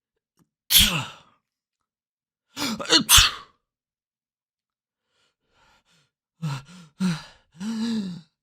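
A person sneezing: one sharp sneeze about a second in, then a second sneeze with a short voiced build-up just before it, around three seconds in. Near the end come several drawn-out voiced breaths.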